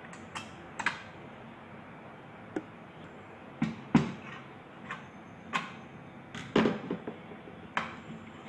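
Irregular sharp clicks and knocks of a screwdriver and of an electric dry iron's plastic housing and chrome soleplate being handled as the iron is taken apart.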